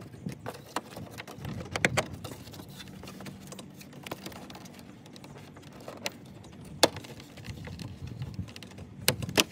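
A BMW F30/F32 plastic kidney grille being pried out of the bumper by hand: its plastic clips and slats click and tap as they work loose. A sharper snap comes about 2 s in, the loudest about 7 s in, and two more near the end.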